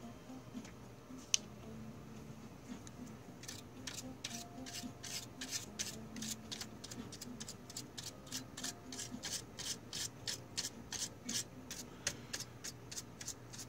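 Small stiff-bristled brush scrubbing the plastic disc tray and guide rails inside a Blu-ray player in quick, even back-and-forth strokes, about three a second, clearing out debris. A single sharp click comes about a second in, before the brushing starts.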